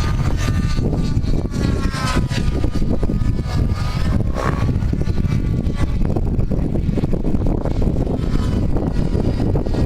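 Helicopter whine rising and falling in pitch as it manoeuvres, with heavy wind noise buffeting the microphone.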